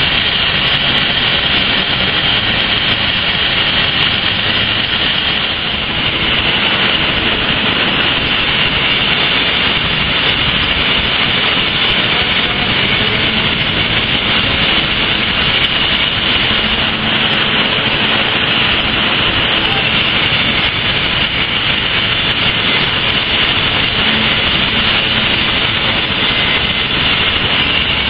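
Loud, steady roar of foundry machinery running without a break while molten metal is poured, with a slight dip about six seconds in.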